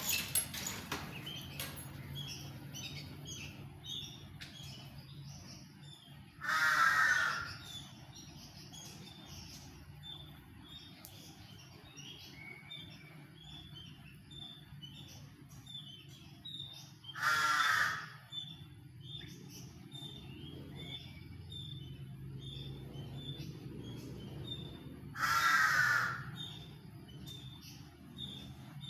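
Aviary birds chirping continuously with many short high notes. Three loud, harsh calls, each about a second long, stand out roughly ten seconds apart.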